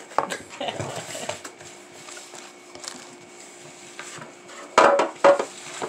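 Kitchen clatter: a spatula scraping and knocking in a plastic mixing bowl of brownie batter while a metal baking pan is handled on a wooden table, with two sharp knocks near the end.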